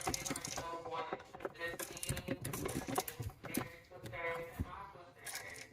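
A person talking, with a few sharp clicks and knocks scattered through it.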